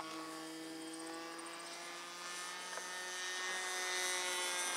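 Radio-controlled Sig Cub model airplane flying overhead, its motor and propeller giving a steady drone that grows louder in the second half as the plane comes closer.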